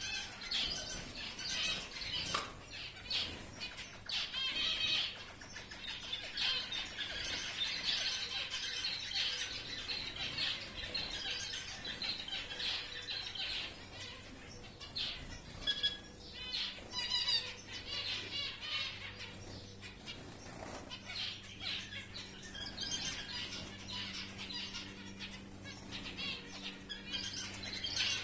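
A flock of giant zebra finches calling continuously: a busy chatter of many short calls overlapping, with occasional wing flutters.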